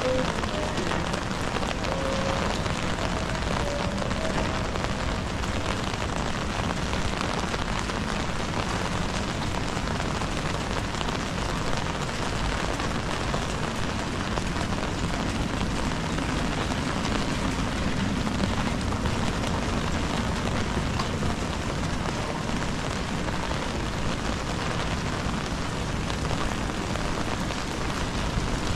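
Steady rain falling on a wet city street: an even, continuous hiss of rain on pavement.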